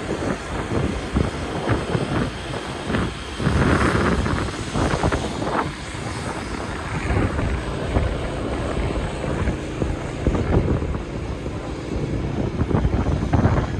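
City street traffic running past, with wind buffeting the microphone, a steady low rumble broken by scattered knocks and a brief louder hiss about four seconds in.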